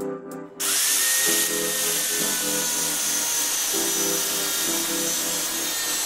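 Angle grinder cutting into the laminated steel core of a microwave oven transformer, starting about half a second in with a rising whine that settles into a steady grinding hiss. Background music plays under it.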